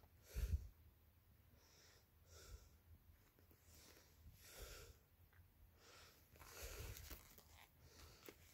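Faint handling noise of Venum 10 oz boxing gloves being touched and moved on a fleece blanket: a few soft rustles and swishes, with one louder knock about half a second in.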